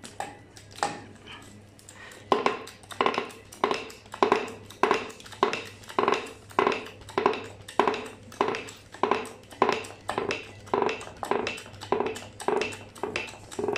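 Steady run of metallic clanks, about one and a half a second, each with a short ring, from steel tooling being worked while a tight bushing is pressed out with a home-made U-bolt and hydraulic-cylinder puller.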